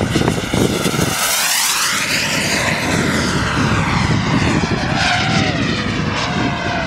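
Small gas-turbine engines of radio-controlled model jets flying past, a steady rushing whine whose tone sweeps as a jet passes, loudest and hissiest about a second and a half in.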